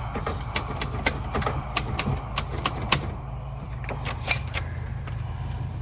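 Typewriter keys clacking, about four strikes a second at first and then more sparsely, with a short bell ding about four seconds in, over a steady low hum.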